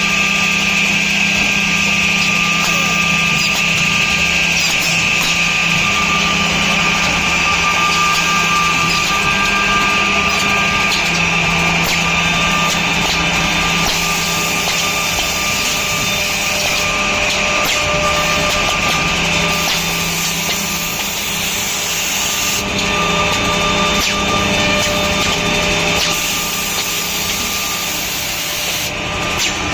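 Automatic edge banding machine running steadily, a constant mechanical hum with a steady high whine.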